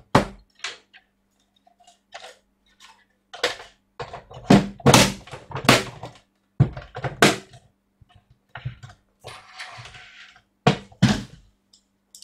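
Plastic case of a Tektronix TDS 210 oscilloscope being handled and closed up: a run of irregular knocks and clunks as the housing halves are set together and the unit is turned over, with a short scraping rustle shortly before the last two loud clunks.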